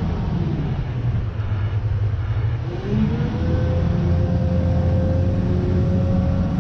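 Kobelco excavator's diesel engine running. It eases off, then picks up again about three seconds in, and a higher whine rises and then holds steady as the machine comes under load.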